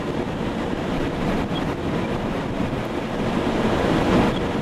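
Strong wind buffeting the microphone, a steady loud rush with no let-up, as a very large tornado forms close by.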